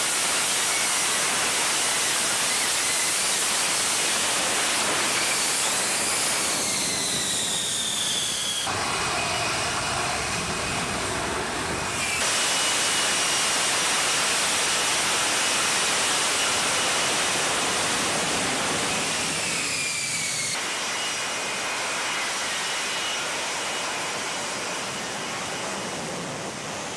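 F-35B Lightning II jet engine running at high power while the jet hovers for a vertical landing: a loud, steady jet rush with high whining tones that glide downward. The sound changes abruptly three times, about 9, 12 and 21 seconds in.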